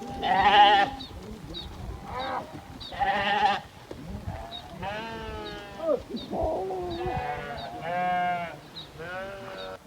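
A flock of sheep bleating: about eight wavering calls from different animals, one after another, the loudest about half a second in.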